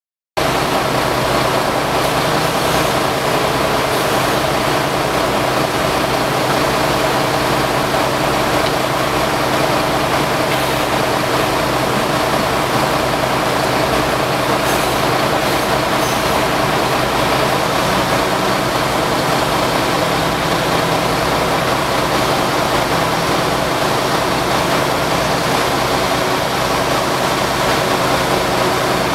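Fire truck's engine running steadily under a constant hiss, cutting in abruptly at the start and holding unchanged throughout.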